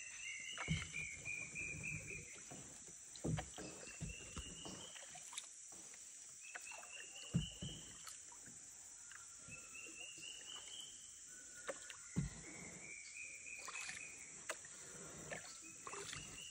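Paddling a small boat with a wooden paddle: water splashing and a few irregular knocks of the paddle against the hull, over a steady high insect buzz, with a short rising call repeating every few seconds.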